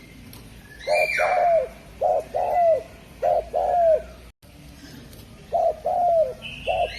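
Spotted dove (derkuku) cooing: a phrase of low, repeated coos, then after a short break another phrase begins.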